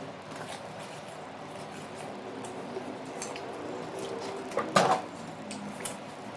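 Wet, juicy biting and chewing of watermelon, with scattered small clicks and a louder sharp burst just before five seconds in.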